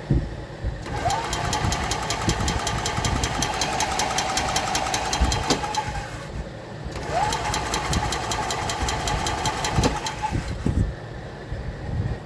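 E-Z-GO Express L4 EFI gas golf cart's starter cranking the engine twice, about five seconds then about four, with a steady whine and a fast even chug, without catching. The engine has no spark or fuel: no 12 volts reaching the coil and injector.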